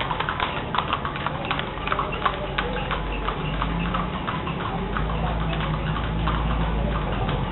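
Hooves of carriage horses pulling kalesas clip-clopping on a paved street. The uneven overlapping steps come from more than one horse, over a steady low rumble.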